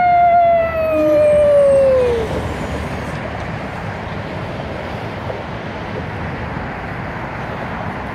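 A single long wail with overtones, gliding slowly down in pitch and stopping about two seconds in. It is followed by steady road noise.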